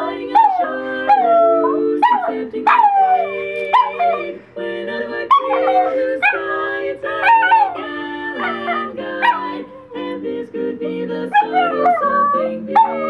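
Miniature schnauzer howling along to a song: repeated short howls that slide down in pitch, over music with steady held chords.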